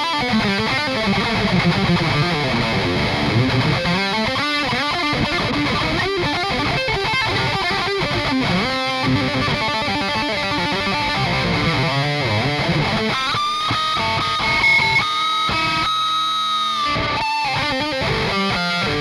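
High-gain distorted electric guitar lead played through a free amp-sim plugin with stereo ping-pong delay: quick runs and bends, then several long held notes with bends and vibrato a few seconds before the end.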